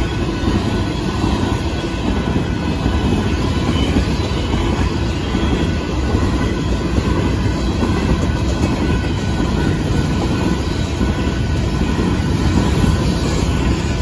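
Freight grain train of loaded covered hopper cars rolling past at a road crossing: steady, loud noise of steel wheels running over the rails.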